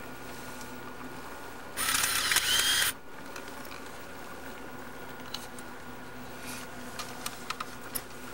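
Camcorder handling and mechanism noise over a steady faint hum: a loud hissing burst lasting about a second, about two seconds in, then several small sharp clicks near the end.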